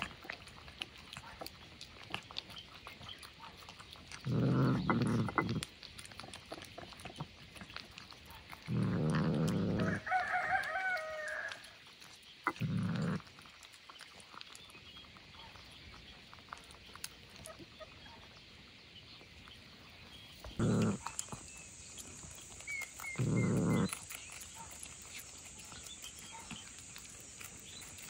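A cat eating wet food from a dish, heard close. Five short low sounds of about a second each break through a quiet background, with a higher wavering call about ten seconds in.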